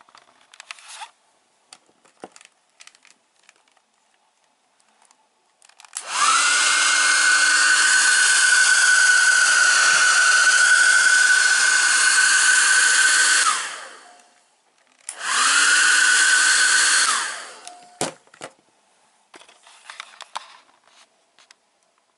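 Handheld hair dryer on its lowest setting, wired in series with a 12-volt car fog lamp as a ballast, switched on twice: its fan motor spins up to a steady whine for about seven seconds and winds down, then runs again for about two seconds. Light clicks and rustles of handling come before and after the runs.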